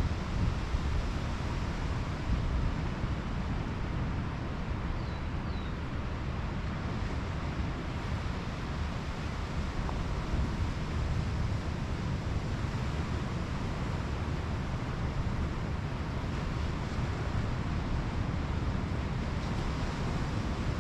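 Pacific Ocean surf washing onto a beach as a steady wash of noise, with wind rumbling on the microphone in small gusts.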